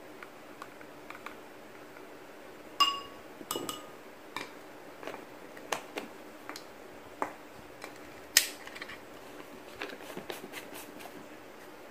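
Measuring spoons clicking and tapping against a small ceramic bowl as baking powder is spooned in: scattered light clicks, two short ringing clinks about three seconds in, and a sharper click a little past eight seconds.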